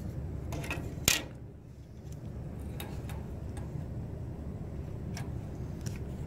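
Light clicks and taps of a printed circuit board and soldering tools being handled on a tabletop, with one sharper knock about a second in, over a steady low background rumble.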